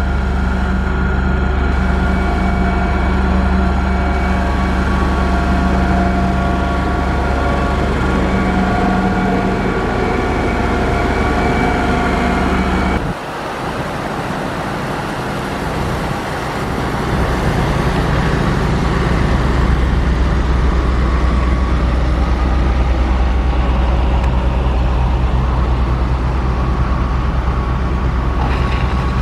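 Heavy diesel engine of a motor grader running steadily, a deep rumble with several whining tones over it. About halfway through, the sound changes abruptly: the low rumble drops away for a few seconds, then a heavy engine rumble comes back louder.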